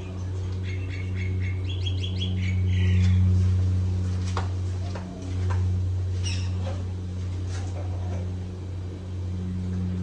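Casablanca Delta II ceiling fan's Samsung K55 motor, on new bearings, running with a steady low hum. Birds chirp briefly early on, and a few faint clicks come later.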